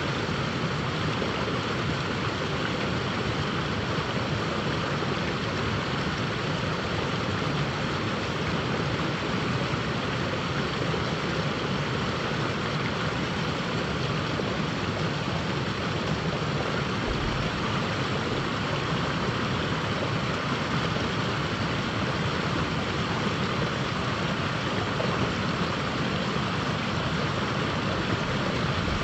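Steady rushing of river water running over a rocky riffle.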